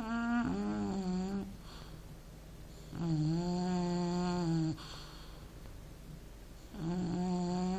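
Snoring: three drawn-out, steady, pitched snores, each lasting about a second and a half, at a breathing rhythm about three and a half seconds apart.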